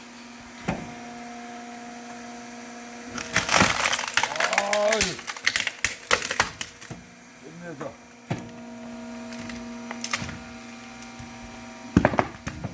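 Homemade log splitter humming steadily as it drives into a large log; about three seconds in the log gives way with several seconds of loud cracking and splintering, and it cracks again near the end.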